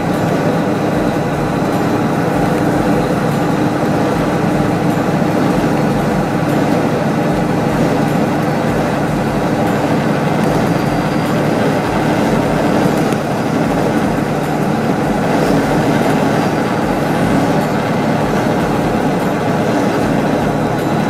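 Steady cab noise of a semi truck driving at highway speed: the diesel engine's drone mixed with tyre and road noise, heard from inside the cab.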